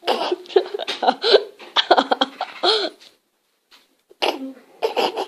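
A woman laughing in repeated bursts for about three seconds, then again after a short pause near the end.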